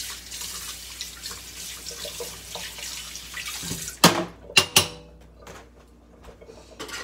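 Kitchen sink tap running as a fork is rinsed under it. About four seconds in the water stops and a few sharp clinks follow as the fork is put back on the dish rack.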